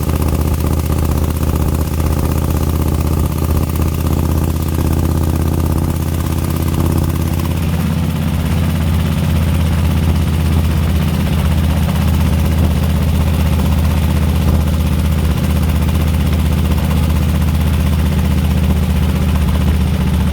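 Harley-Davidson CVO Ultra Classic's 103 cubic inch Twin Cam V-twin idling steadily with a ticking that the owner calls horrible and cannot place. Its tone shifts about seven seconds in.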